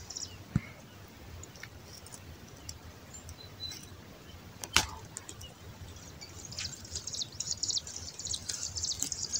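Small birds chirping in quick, high runs that grow busier from about two-thirds of the way in. A couple of sharp clicks or knocks are heard as well, the loudest about halfway through.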